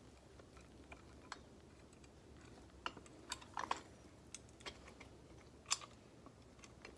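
Scattered light clicks and knocks of the parts of a manual grain grinder being handled and fitted together, at an irregular pace, with one sharper knock toward the end.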